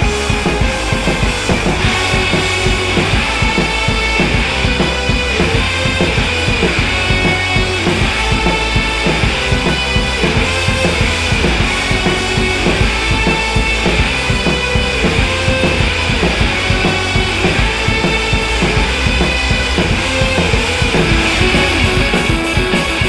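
Background rock music with a fast drum beat and guitar.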